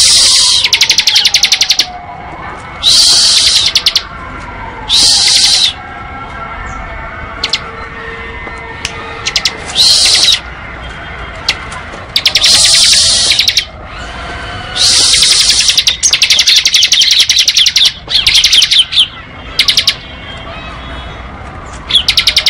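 Bar-winged prinia (ciblek) singing its rapid, machine-gun-like 'ngebren' trill in about nine loud bursts of half a second to two seconds each. A faint gliding tone wavers underneath.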